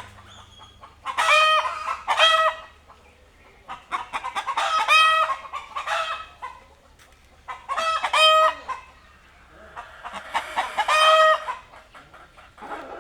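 Chickens cackling in four loud bouts of repeated squawks, about three seconds apart.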